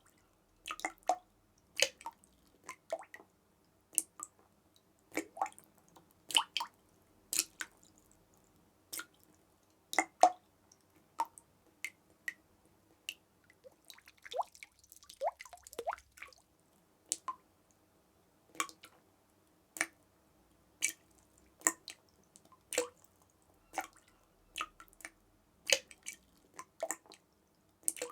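Water drops dripping at an irregular pace, about one to two a second. Each drop is a sharp plink with a short pitched ring, and a brief flurry of quicker, smaller drips comes about halfway through.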